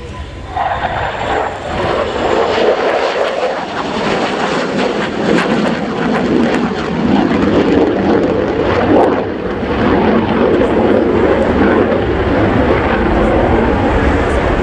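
Polish Air Force F-16C fighter's Pratt & Whitney F100 jet engine, loud as the jet flies past. The noise comes up sharply about half a second in and stays loud, with a rough crackle through the middle.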